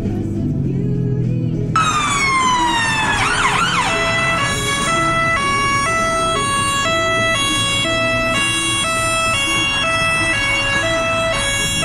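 Ambulance siren cutting in suddenly about two seconds in with a falling wail and a brief warble, then settling into the two-tone hi-lo, switching between two pitches about twice a second.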